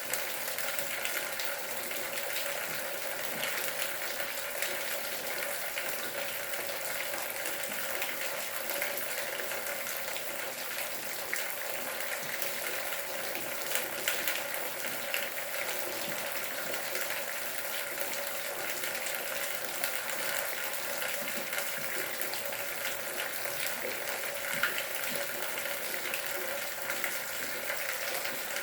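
Steady rain falling: a continuous hiss of water with many small drop ticks scattered through it.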